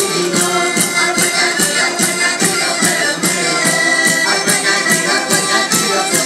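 Traditional Portuguese folk-dance music: sustained melody lines over a steady percussive beat of about four strokes a second.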